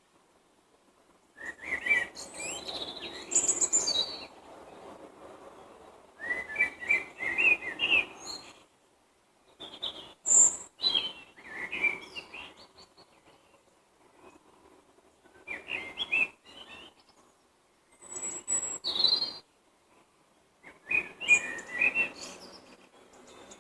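Songbirds singing in short warbling phrases of one to three seconds each, about six phrases with brief pauses between them.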